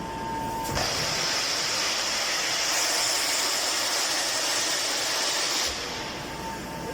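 A loud, steady hiss of machinery, like air being let out, starts suddenly just under a second in and cuts off abruptly about five seconds later. A steady high machine whine is heard before and after it.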